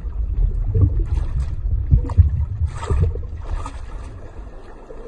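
Underwater water ambience: a deep rumble of moving water with a few soft swishes, about one a second, fading down near the end.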